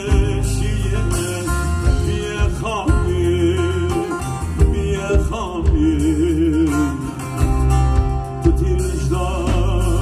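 Live band playing an Anatolian folk tune on bağlama (saz), electric guitar, bass guitar, drums and a wooden end-blown flute. An ornamented, wavering melody runs over a steady bass line.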